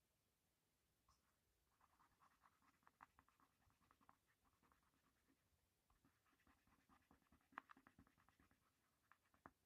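Faint scratching of a coloured pencil on drawing paper in quick short strokes, in two spells with a pause between them.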